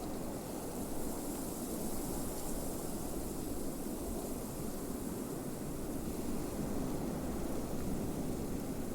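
Blizzard wind, a steady low roar with a thinner high hiss that brightens a little in the first few seconds.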